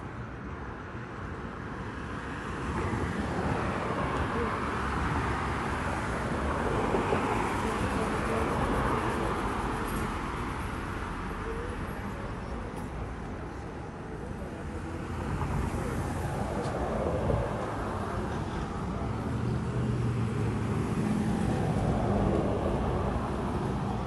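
Steady street traffic noise, a rumble and hiss that swells and fades several times as vehicles pass.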